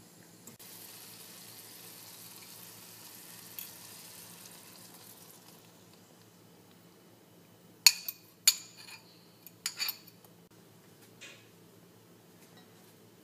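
Chopped greens sizzling softly in a nonstick frying pan. The sizzle fades about five seconds in, and a few seconds later comes a quick run of four or five sharp clinks of kitchenware against the pan, the loudest sounds here.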